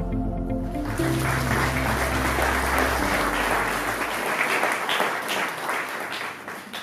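Audience applauding, starting about a second in, over background music that fades out about two thirds of the way through.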